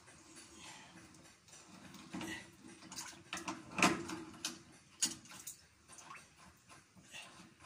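Irregular metal clicks and scrapes of pliers gripping and turning a brass threaded fitting on a plastic pipe tee as it is unscrewed, the loudest clicks about four and five seconds in.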